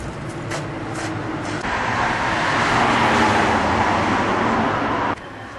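Road traffic: a vehicle running close by on the street, its noise swelling about a second and a half in and cutting off abruptly near the end.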